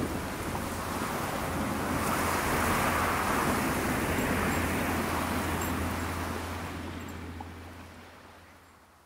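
Outdoor sea-and-wind ambience: a steady rush of wind and surf with a low steady hum beneath it, fading out over the last few seconds.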